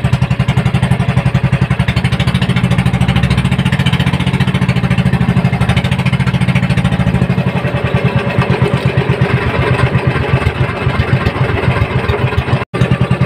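Small outrigger boat's engine running steadily with a fast, even putter. The sound cuts out for a split second near the end.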